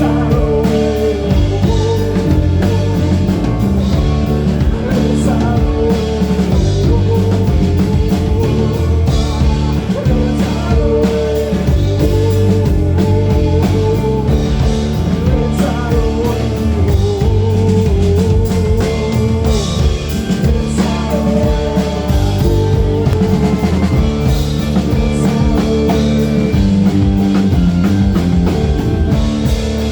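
A rock band playing live: drum kit and guitars in a loud, continuous, dense mix, with a wavering sung or lead line over it.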